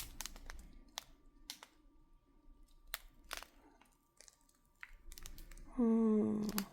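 Small plastic bags of diamond-painting drills being handled: scattered light clicks and soft rustles. A short burst of voice comes near the end.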